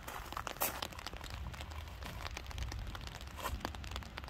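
Light rain ticking irregularly on an umbrella overhead, with a low steady rumble underneath.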